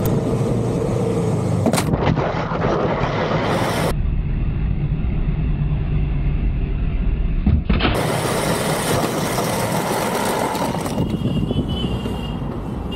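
Road vehicle noise: a vehicle running, with dense rumbling noise heaviest in the low end. The sound changes abruptly several times, about 2, 4, 8 and 11 seconds in.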